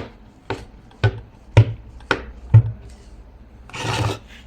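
A Distress Ink pad being tapped against a stamp mounted on an acrylic block to ink it: five dull taps about half a second apart, then a short rub near the end.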